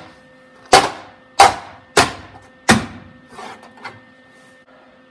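Hammer striking the sheet-steel inner front wheel-well panel of a 1971 VW Super Beetle, four sharp blows about two-thirds of a second apart, each ringing briefly, then a couple of faint knocks. The blows tuck the new patch panel's edge in tight against the body before it is welded.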